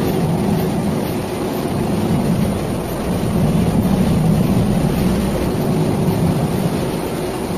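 Industrial stone-slab processing machine running on a roller conveyor line: a steady machine drone and rumble with a faint constant hum, and no letting up.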